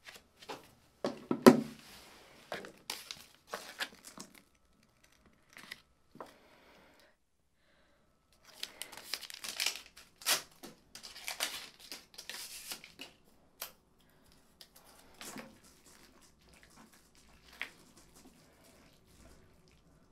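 An instant cup ramen being unwrapped: its plastic film and paper lid are crinkled and torn open, and disposable chopsticks are pulled from their wrapper. The sound comes in irregular bursts of rustling and tearing, with the loudest tear about a second and a half in.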